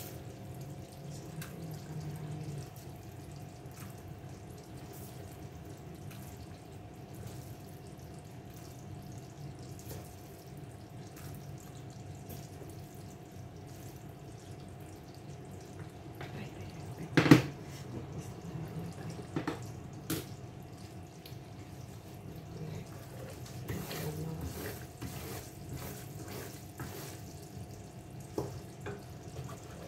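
Kitchen water running or trickling, with scattered clinks and knocks and one louder knock a little past halfway, over a faint steady hum.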